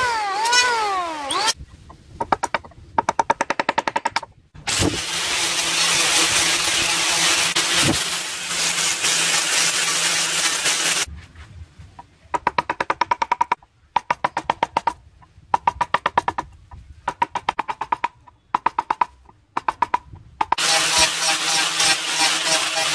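Power tools working wood in several cut-together stretches: a rising and falling whine at the start, a stretch of steady machine noise, repeated one-second bursts of fast rattling, and near the end an angle grinder with a sanding disc running steadily against the wood.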